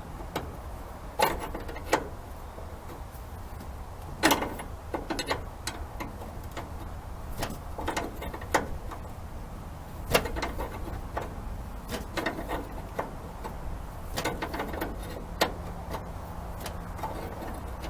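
Irregular clicks and taps of hand tools on metal as a brass brake-line fitting is threaded into a new brake master cylinder and tightened with a wrench.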